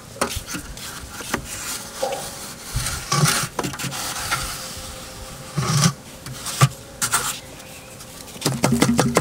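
A metal straightedge scraping along freshly applied wet cement render in several separate rough strokes, with a few sharp knocks between them.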